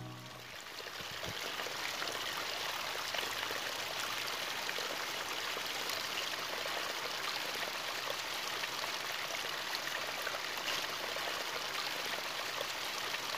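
A small stream pouring over rocks in a little cascade: a steady rush and splash of water that swells in over the first second or so.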